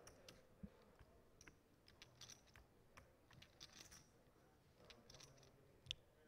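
Near silence with faint, scattered light clicks.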